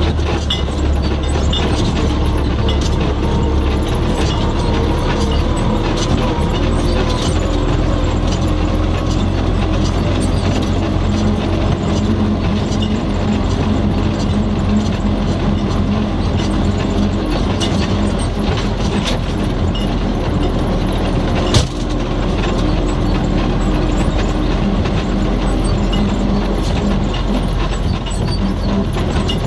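MTZ-80 tractor's four-cylinder diesel engine running steadily under load, heard from inside the cab while it pulls two wheat trailers, with the cab and its levers rattling and clattering over the bumpy track. One sharp knock about two-thirds of the way through.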